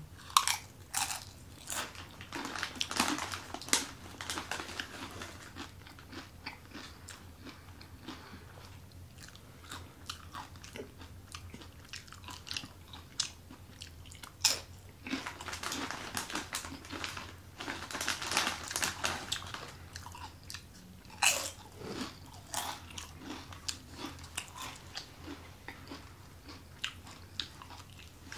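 Dorito tortilla chips being bitten and chewed: clusters of crisp crunches with quieter stretches of chewing between.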